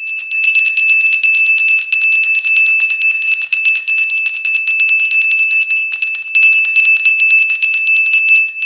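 Brass hand bells with wooden handles shaken rapidly, ringing loudly and continuously with a fast run of clapper strikes. This is the traditional last bell (соңғы қоңырау), rung to mark the end of the school year.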